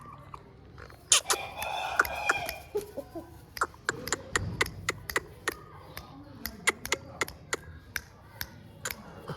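Aseel gamefowl giving a loud call lasting about a second and a half, followed by a run of sharp, irregular clicks, about two or three a second.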